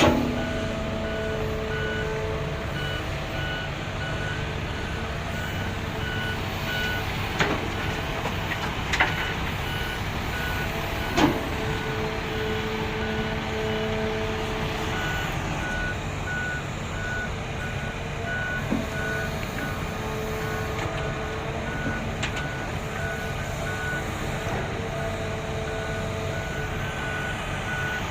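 Reversing alarm of a heavy road-construction vehicle, beeping in an evenly repeated tone over the vehicle's steady engine rumble. A few sharp knocks come in the first half.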